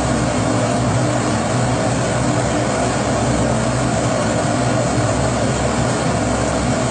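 Pressurised kerosene stove (Primus-type bābūr) burning, its burner giving a loud, steady rush with a faint low hum and no change.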